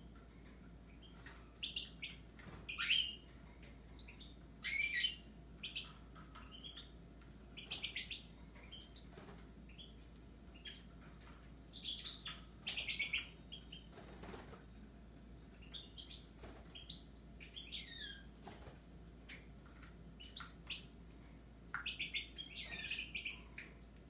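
Caged European goldfinches and Raza Española canaries chirping and singing in short, bright, twittering phrases that come and go, with brief pauses between them.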